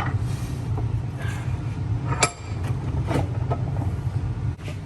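A few sharp metal clinks and knocks as the steel maul head is handled and set against metal, the loudest about two seconds in with a brief ring. A steady low machine hum runs underneath.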